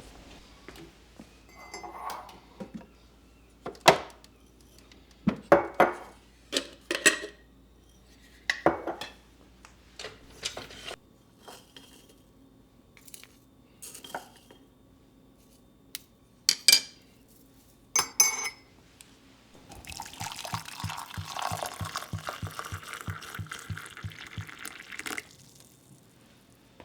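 A series of sharp clinks and knocks from hard household items being handled, several of them loud. About twenty seconds in comes a steady rushing sound with a faint regular pulse, lasting about five seconds.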